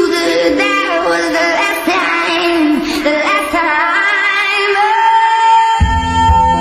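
Sped-up pop song mashup: a woman singing a melody over music, settling into one long held note, with deep bass coming in near the end.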